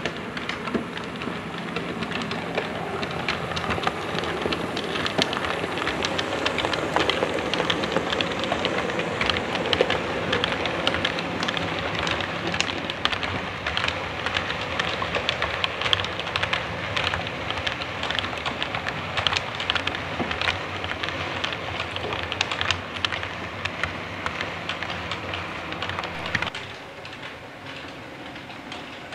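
Model train, a streamlined A4-type locomotive hauling a rake of coaches, running on the layout track: a steady rumble with a dense clatter of small clicks, loudest as the coaches pass close. The sound drops sharply near the end.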